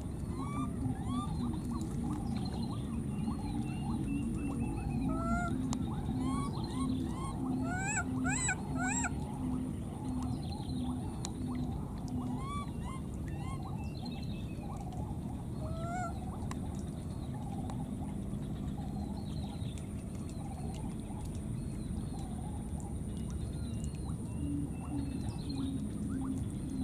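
Baby monkeys giving many short, high squeaky calls that rise and fall in pitch, a quick flurry of them about eight seconds in, over a steady low rumble and a faint high insect-like whine.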